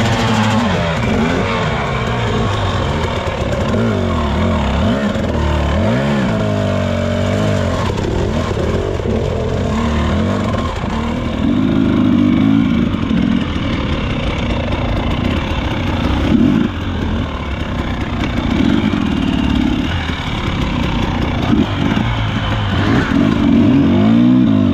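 Dirt bike engine revving up and dropping back over and over at trail speed, its pitch sweeping up and down every few seconds.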